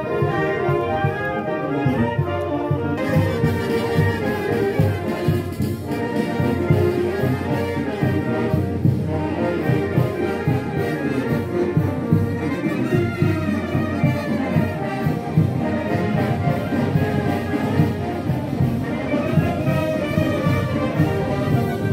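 Brass band playing a tune with a steady beat, with brass and woodwind instruments over a tuba bass.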